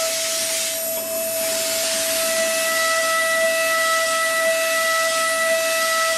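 CNC machine tool running: a steady spindle whine with a few higher overtones over a constant hiss. The hiss drops briefly about a second in, and a higher overtone comes in at about two seconds.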